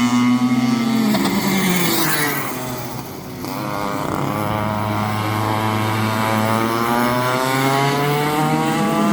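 Go-kart engine at speed: its pitch falls as the throttle is lifted about two seconds in, then rises steadily again as it accelerates.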